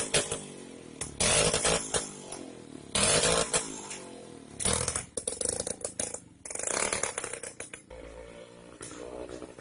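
Small petrol engine of a motorized kick scooter revving in short bursts, the throttle opened four or so times and dropping back to a low idle between. It grows quieter near the end as the scooter moves off.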